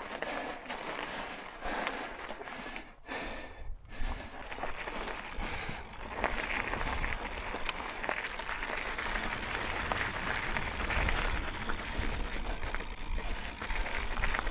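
Electric mountain bike ridden over a rough, stony trail: tyres crunching on rocks and the bike rattling over bumps, with wind rumbling on the microphone.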